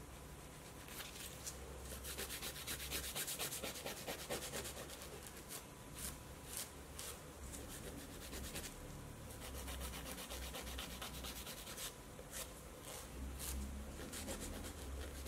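Hand nail file rasping back and forth across a fingernail, shaping the tip into an almond. The strokes come in quick runs with short pauses between them.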